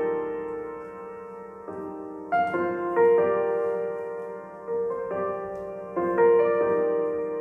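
Piano chords from a pop song's instrumental passage, played back through Razer Nommo desktop speakers. A new chord is struck about every one to two seconds, and each one rings out and fades.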